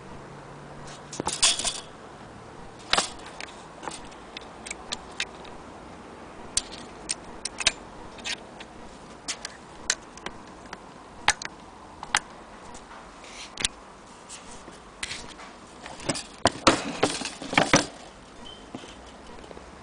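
Scattered sharp clicks and knocks of an antique Singer sewing machine head being handled and tipped over on a table, with a burst of louder knocks about sixteen seconds in.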